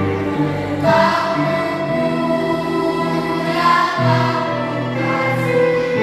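A children's school choir singing in unison, with held notes from an instrumental accompaniment underneath.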